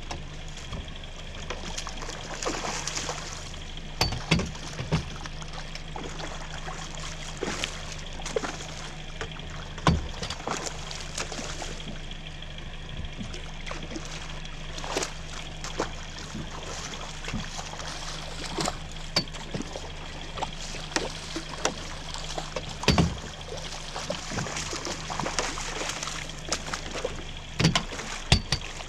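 Water sloshing and trickling around a small fishing boat over a low steady hum, with a few sharp knocks now and then, two of them close together near the end.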